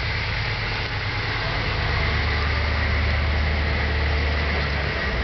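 Humvee's V8 diesel engine idling steadily, a low, even running note that shifts slightly in pitch near the end.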